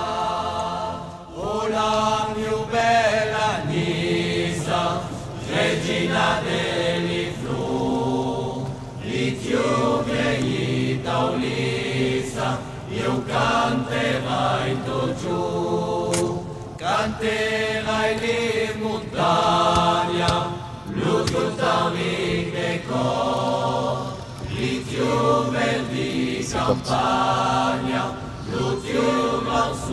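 A choir singing a song in phrases of a few seconds each, laid over the footage as background music.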